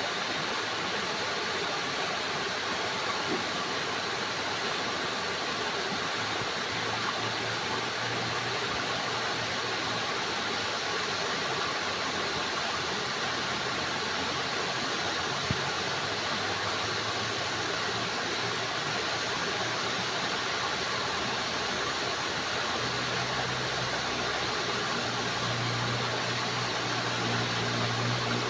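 Steady rush of running water, even and unbroken, with a faint low hum underneath that grows a little stronger in the second half.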